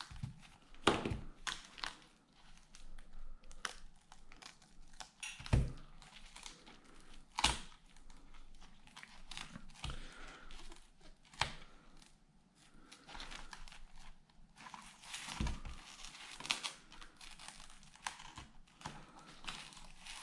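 Hands working on an opened tablet: scattered clicks and taps with crinkling, rustling sounds as the parts and screen are handled.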